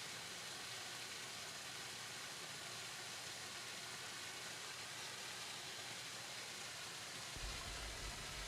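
Small garden waterfall splashing steadily into a pond: an even rushing with no distinct drips or pauses.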